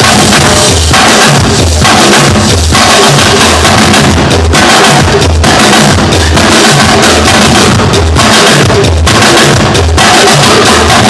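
Loud music with a steady drum-kit beat, the bass drum thumping about twice a second.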